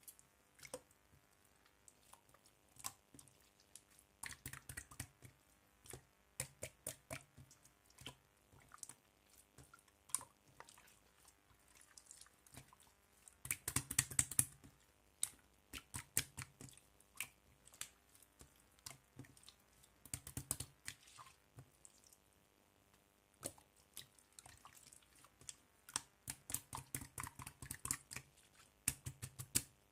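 Slime being squeezed, poked and stretched by hand, giving irregular wet clicks, pops and squelches in bunches every few seconds, the loudest bunch about halfway through.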